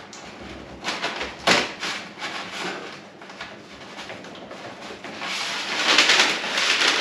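Handling noise from a length of plastic push-fit water pipe being held and shifted along the top of a wall cupboard: a few knocks about a second in, then a longer, louder scrape near the end.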